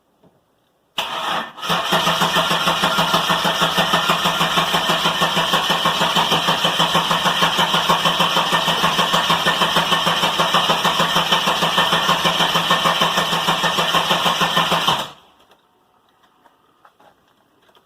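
Holden VS Commodore engine being cranked over by the starter, a steady rhythmic churning for about fourteen seconds that does not catch and stops abruptly when the key is released. This is a start attempt on a long-stored car just after a fuel pressure regulator was replaced.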